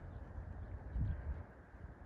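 Wind buffeting the microphone as an uneven low rumble, with a louder gust or bump about a second in.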